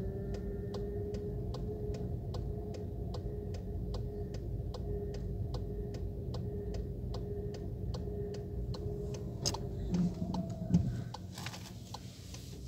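Car turn-signal indicator ticking steadily, about two to three clicks a second, over the engine's steady low hum. It stops about ten seconds in, when the signal cancels, and a few knocks follow.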